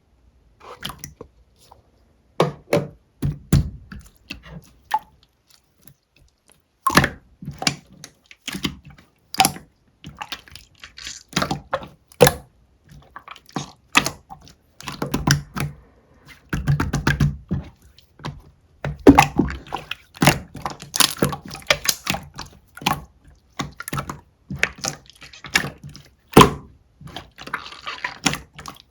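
Clear slime being squeezed and poked by hand, making irregular wet clicks and pops, some with a soft thud.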